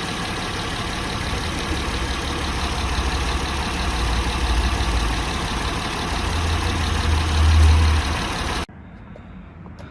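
2009 Acura MDX's V6 engine idling steadily, running again after an electrical no-start fault was repaired. The sound cuts off suddenly near the end.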